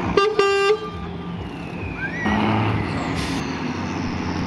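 Two short horn blasts in the first second, the second a little longer, over a truck engine running steadily.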